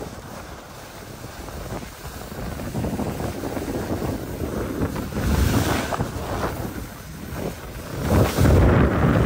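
Wind rushing over the microphone of a skier heading downhill, with skis hissing and scraping over packed snow. The rush builds and swells louder about halfway through and again near the end as speed picks up.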